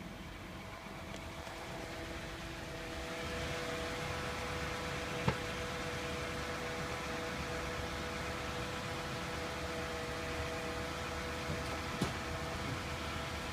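2012 Toyota Camry running: a steady hum with a couple of faint steady tones, getting a little louder about three seconds in. Two short sharp clicks come through, one about five seconds in and another near the end.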